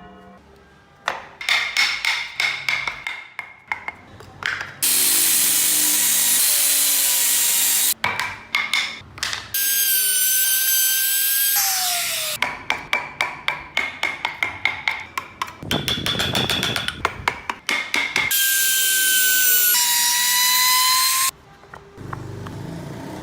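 Woodworking tool sounds in abruptly changing stretches. Runs of quick back-and-forth hand strokes on wood, like sawing or rasping, alternate with three longer bursts of a small electric rotary tool or drill running with a whine that shifts in pitch as it cuts.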